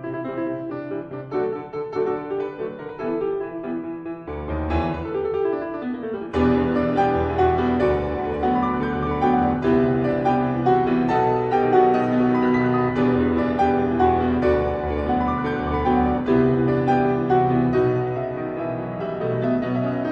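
Background piano music, sparse at first, becoming fuller with a low bass about six seconds in.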